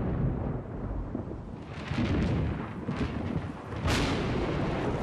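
Thunder rumbling low and steadily, with a sharper clap about four seconds in.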